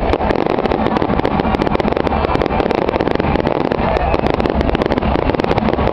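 Dense barrage of aerial firework shells bursting, many bangs a second running together into a continuous crackle.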